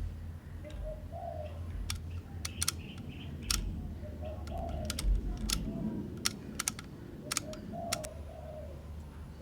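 Sharp, irregular mechanical clicks from a Canon F-1 35 mm SLR's controls as its shutter speed dial is turned, about a dozen in the middle of the stretch. A dove coos repeatedly in the background.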